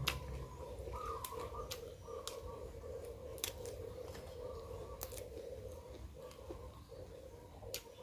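Close-up eating sounds: chewing and biting raw winged beans and fresh vegetables with grilled pork, with several sharp crunches at irregular intervals over a faint steady hum.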